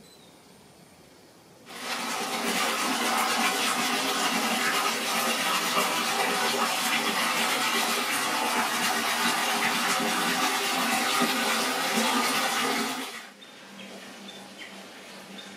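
Falling water, pouring and splashing steadily. It starts suddenly about two seconds in and cuts off about thirteen seconds in.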